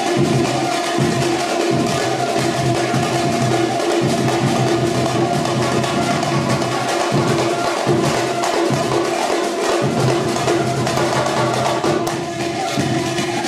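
Background music with percussion: held tones over a beat of wood-block and drum hits.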